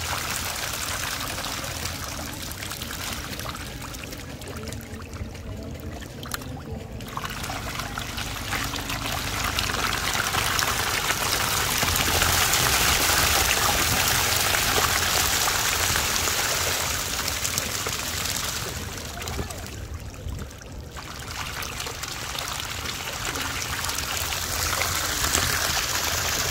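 Many small fish thrashing and splashing in shallow water: a continuous watery spatter. It thins out twice for a moment and is loudest in the middle.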